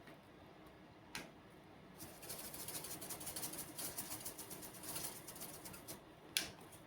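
A click, then a spice jar being shaken, dried rosemary rattling out in a quick run of small strokes for about four seconds, with another click near the end.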